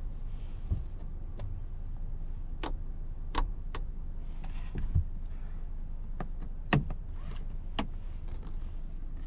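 Half a dozen sharp clicks and knocks from a small hatchback SUV's rear-seat fittings and trim being handled, over a steady low hum.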